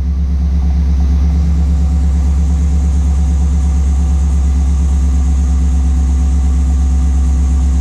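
GM 6.0-litre V8 idling steadily, just started after an oil pump replacement. Its oil pressure is still low, which the owner puts down to worn main bearings.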